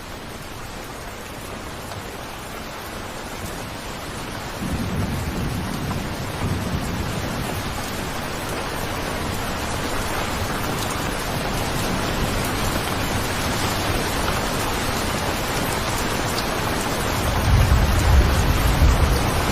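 Steady rain, getting slowly louder, with a low rumble of thunder coming in about five seconds in and a stronger rumble near the end.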